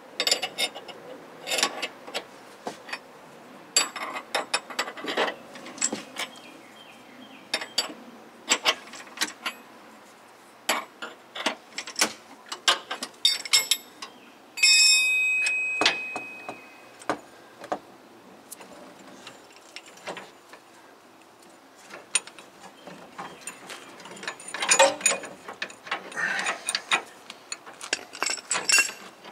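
A ratchet wrench clicking and steel tools clinking against a ball-joint press as the press is backed off after the new upper ball joint has bottomed out. About halfway through there is one sharp metallic clang that rings for a couple of seconds.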